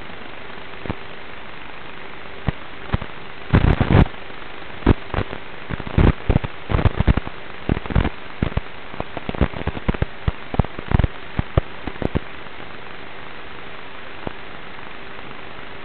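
Steady static hiss with a faint hum, broken between about three and twelve seconds in by irregular crackles and pops.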